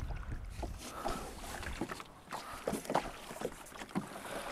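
Water splashing and slapping as a small boat is punted along with a bamboo pole: a series of short splashes from the pole and the water against the hull. There is a low wind rumble on the microphone over about the first two seconds.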